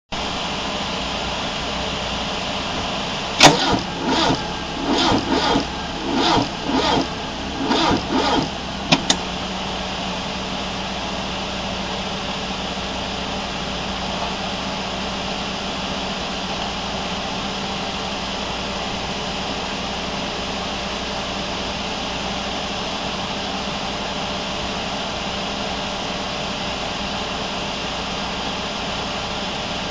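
Peugeot Mi16 16-valve four-cylinder engine being cranked on the starter and failing to start. A sharp click is followed by about five seconds of uneven, lumpy pulses, then two quick clicks as the starter stops. After that there is only a steady hiss with a faint hum.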